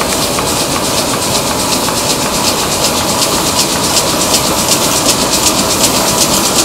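Mitsubishi D3000LX6 six-colour 40-inch sheet-fed offset press running: a steady mechanical hiss and hum with a fast, even clatter repeating several times a second.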